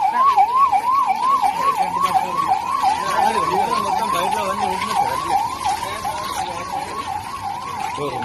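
Ambulance siren wailing in a fast, repeating rise and fall, nearly three sweeps a second, growing slightly fainter toward the end.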